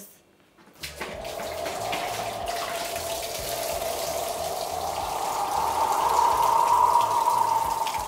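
Water pouring out of an upside-down plastic bottle through a swirling vortex into a sink, starting about a second in. A steady rushing pour whose pitch climbs slowly as it grows louder, easing off a little near the end.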